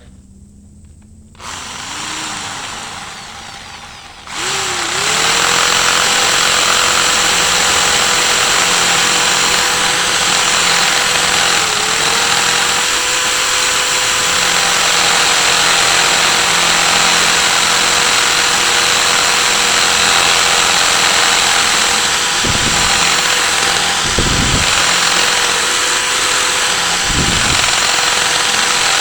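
Electric drill with a large, water-fed bit boring into a concrete tabletop to make a countersink hole. It starts gently about a second and a half in, then runs hard from about four seconds as a loud, steady whine, briefly sagging in pitch twice as the bit bites.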